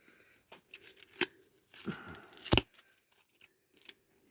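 Packaging of a pack of hurricane matches being worked open by hand: scattered clicks and short rustles, with a sharper snap about two and a half seconds in.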